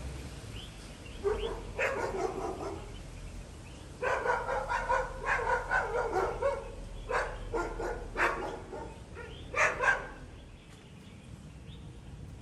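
A dog barking repeatedly, in four quick runs of barks with short pauses between them.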